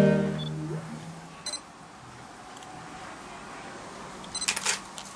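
Band music led by a violin ending on a held note that dies away within the first second, leaving a quiet room. A faint knock comes about a second and a half in, and a few soft clicks near the end.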